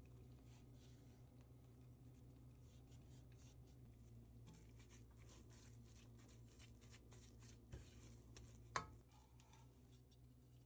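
Faint rubbing and scratching strokes over a low steady hum, with one sharp click about nine seconds in.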